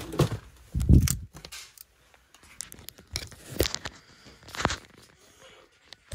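Cardboard boxes and boxed goods being handled and shifted: a heavy thump about a second in, then scattered knocks and scrapes of cardboard.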